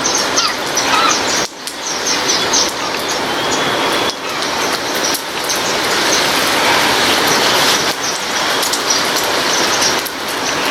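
Steady rain falling, with small birds giving short, high chirps over it again and again.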